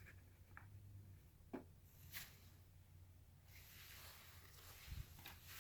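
Faint handling noise of trading cards and packaging: a couple of soft clicks, then a stretch of quiet rustling and a low thump near the end, over a steady low hum.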